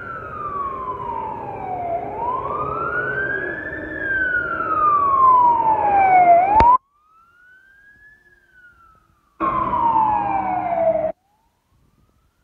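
Emergency vehicle siren in a slow wail, its pitch rising and falling about every four seconds. It cuts off suddenly about two-thirds of the way in, comes back faintly, then loud again for a couple of seconds before stopping short.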